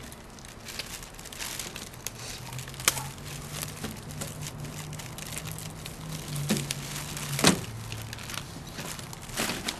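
Clear plastic wrapping crinkling as it is handled and pulled out of a metal lunchbox, with scattered small clicks and knocks, the loudest a sharp knock about three quarters of the way through. A low steady hum sits underneath for several seconds in the middle.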